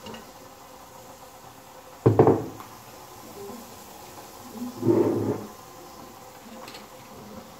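Two short clunks from a black spatula knocking and scraping in a stainless steel frying pan while beef in chilli paste is stirred. The first, about two seconds in, starts suddenly and is the loudest; the second comes about five seconds in.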